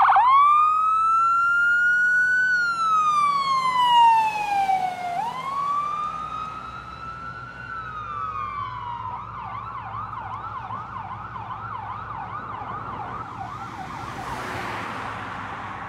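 Electronic siren of a fire department emergency vehicle, first in a slow wail that rises and falls twice, then switching to a fast yelp about nine seconds in. It grows fainter as the vehicle drives away.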